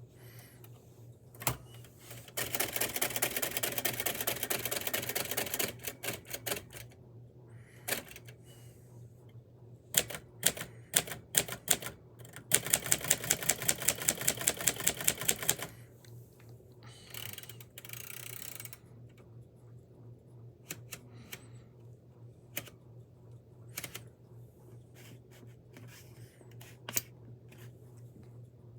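Typewriter being typed on: single sharp key strikes, and twice a quick, even run of strikes lasting about three seconds, over a steady low hum.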